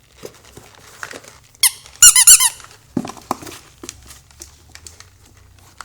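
Squeaky toy mouse squeaking in a quick run of high chirps as a cat grabs it, with light knocks and rustling around it.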